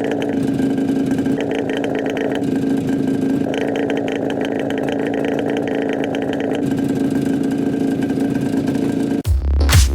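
IZh Jupiter-5 motorcycle's two-stroke twin-cylinder engine running steadily through a muffler with its baffles removed.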